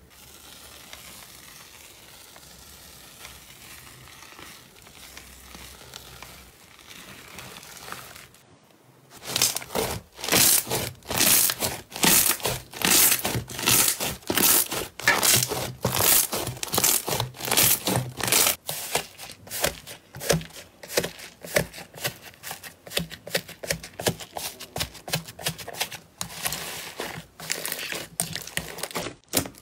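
Hands squeezing and kneading slime, with wet crackling and popping as air bubbles burst. A soft, steady crackle for the first several seconds, then loud, rapid crackles and pops from about nine seconds in, easing off after about eighteen seconds.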